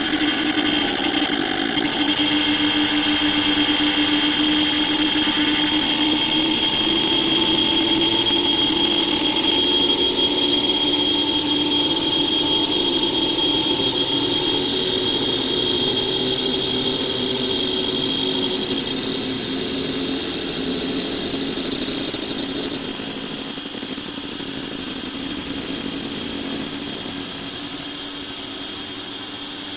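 Heavily slowed-down, time-stretched audio turned into a steady electronic drone, with a held low hum and a held high tone. It starts suddenly out of silence, the high tone fades away later on, and it drops in level about 23 seconds in.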